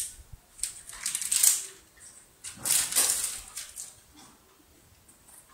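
Plastic snack wrapper crinkling as it is squeezed and handled, in several irregular bursts, the loudest about one and a half and three seconds in.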